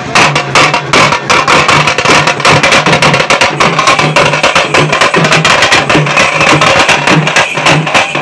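A group of shoulder-slung double-headed drums beaten with sticks, playing a loud, fast processional rhythm: rapid stick strokes over a deep beat about twice a second.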